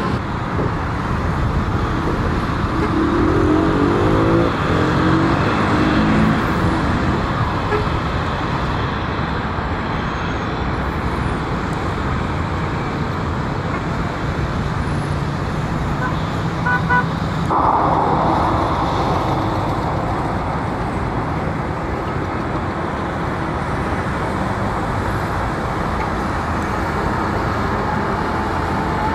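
Steady roar of a taxiing Boeing 737-800's jet engines, mixed with road traffic. A short series of horn beeps comes just past halfway.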